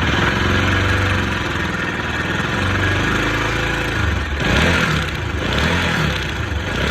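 Bajaj Pulsar RS200 engine idling with a loud 'kat-kat-kat' rattle from inside, then revved in several short blips from about four seconds in. The rattle is the sign of a slack timing chain whose adjuster (tensioner) has run out to the end of its travel.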